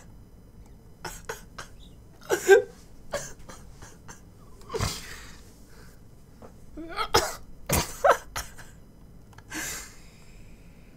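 A man's uncontrollable laughter, half stifled: irregular sharp bursts of breath and laughs with pauses between them, as he laughs to the point of tears while trying to hold it back.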